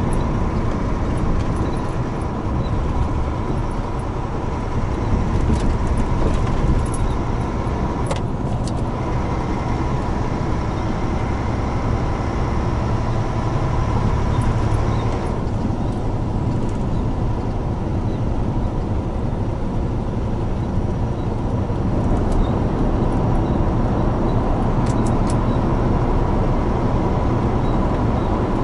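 Heavy truck cab at cruising speed: a steady low diesel engine drone mixed with tyre and road noise, and a thin steady tone over it. The level hardly changes, with a few faint clicks about 8 and 25 seconds in.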